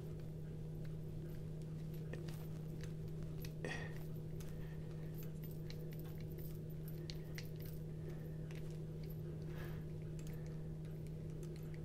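Faint small clicks and scrapes of a precision screwdriver bit turning a body screw out of a Petrified Fish PF858 folding knife's handle, heard over a steady low hum.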